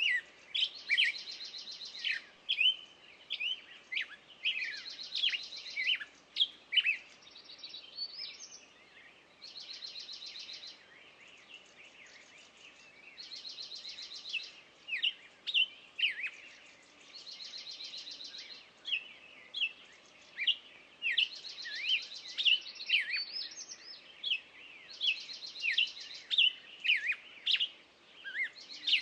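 Songbirds singing: a dense run of short, sharp chirps and whistles, with a dry trill of about a second and a half repeating roughly every four seconds.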